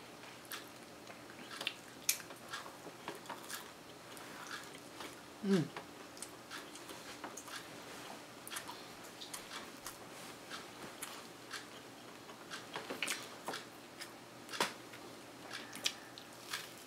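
Close-up eating sounds: biting into and chewing a toasted waffle ice cream sandwich, with scattered sharp crisp clicks and crunches from the waffle. A brief falling hum about five and a half seconds in.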